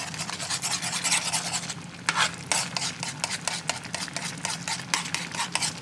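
A spoon stirring gravy and meatballs in a GreenLife ceramic nonstick skillet, with repeated short clicks and scrapes against the pan as browning seasoning is worked into the sauce.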